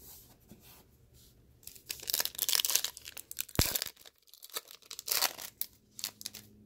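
A Topps Chrome Update trading-card pack's foil wrapper being torn open and crinkled, in several short rustling bursts, with a sharp click about three and a half seconds in.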